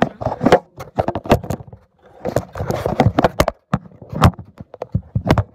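Handling noise from a phone camera being picked up and repositioned by hand: irregular knocks, taps and rubbing of fingers against the phone's microphone.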